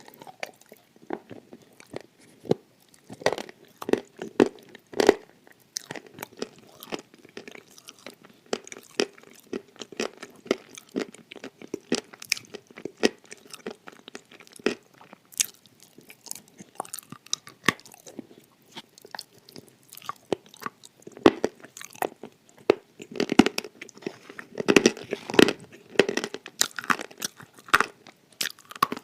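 Close-up crunching and chewing of hard, dry edible clay, many irregular crisp bites and crunches, coming thickest near the end.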